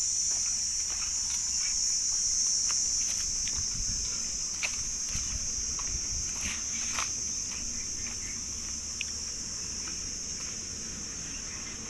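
Steady, high-pitched shrilling of insects in chorus, with a few scattered footsteps on dry dirt and leaf litter.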